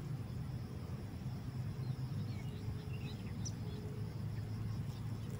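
Outdoor ambience: a steady low rumble with a few faint, short bird chirps about two to three seconds in.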